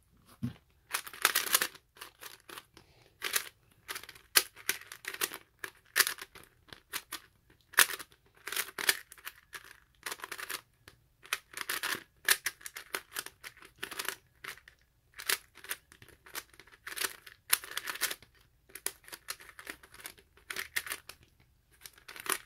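A LEGO-brick 3x3 puzzle cube being turned fast during a speedsolve: rapid, irregular clacking and rattling of its plastic layers.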